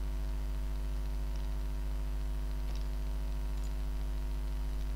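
Steady electrical mains hum in the recording, with a stack of higher hum tones above it and light background hiss. A few faint clicks come through.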